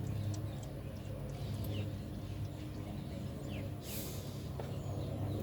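Birds chirping, with short falling calls, over a steady low hum. A brief hiss comes about four seconds in.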